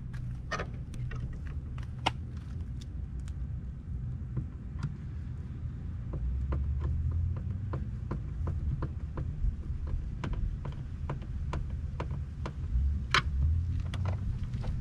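Scattered light clicks and taps of hands and a screwdriver working on a car's plastic door panel around the inner door handle, with a few sharper clicks near the end. A steady low rumble runs underneath.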